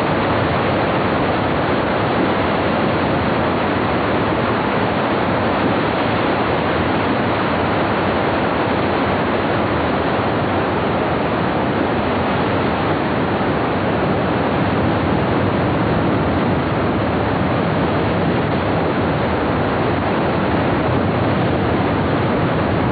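Big-volume whitewater rapids of a glacier-fed Himalayan river, a loud unbroken rush of water.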